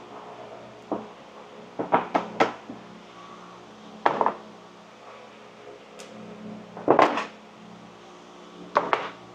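Heavy metal weight blocks lifted off a foam-board wing and set down on a wooden workbench: a series of clunks and knocks in small clusters, a second or a few seconds apart, the loudest about two and seven seconds in.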